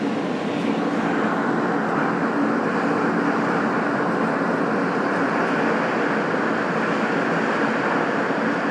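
Steady noise of a moving vehicle, unbroken, with a faint low hum running under it.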